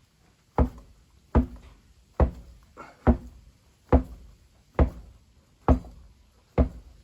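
Eight evenly spaced thumps, a little over one a second, each with a short low ring, from the freshly inflated tubed motorcycle tyre being knocked or bounced to seat a bead that has not fully seated.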